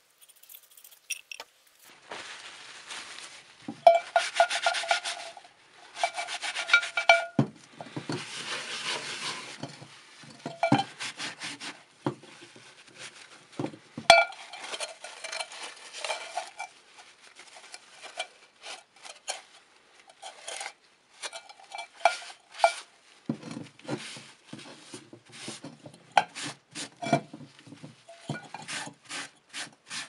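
Paper towel rubbing and wiping over a wet metal cowbell to dry it, a rustling scrape in short strokes with small knocks. Now and then the bell gives a brief metallic ring.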